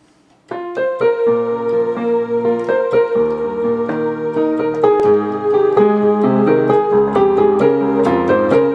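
Electric piano or keyboard playing the instrumental introduction to a song: a held melody over changing bass notes, starting about half a second in.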